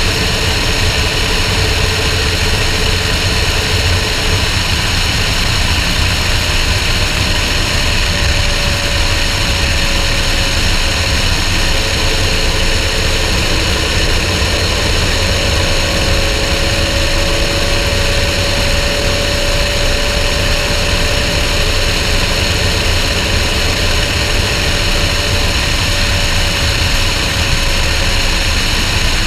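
Car cruising at a steady highway speed: constant wind rush and road noise on an outside-mounted microphone over a low, even engine drone, with no revving.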